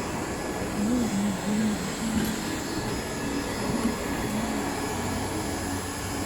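Hot air banner welding machine's blower motor running steadily after being switched on, its heater not yet turned on.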